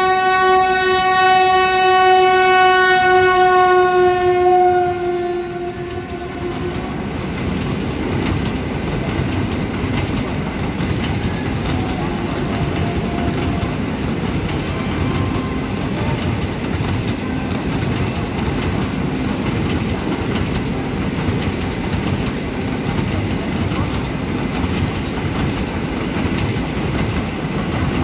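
A train horn sounds one long note, sinking slightly in pitch, that stops about five seconds in. Then the Vande Bharat Express electric multiple-unit train runs through at speed with a steady rumble and clatter of wheels over the rails.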